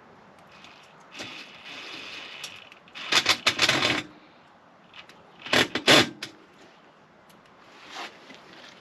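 Clinking and rattling of tools and metal hardware being handled, in two short bursts about three and five-and-a-half seconds in, after a softer scraping.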